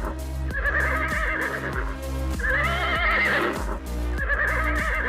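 Horse whinnying over and over, about every two seconds: three wavering neighs, the last cut off at the end. Background music with a steady beat plays under it.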